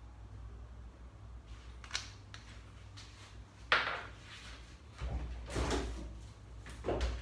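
Kitchen handling noises: a few clicks, a sharp knock a little under four seconds in, then shuffling and bumps, over a steady low hum.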